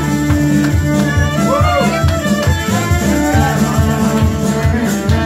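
Live band playing an instrumental passage: two fiddles carrying the tune over guitar and a steady low rhythmic pulse.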